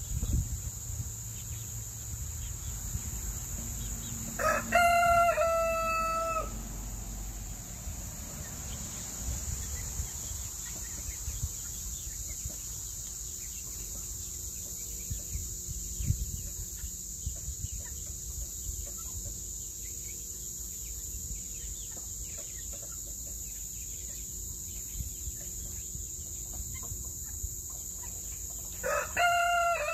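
A rooster crowing twice, each crow about two seconds long: once about five seconds in and again near the end.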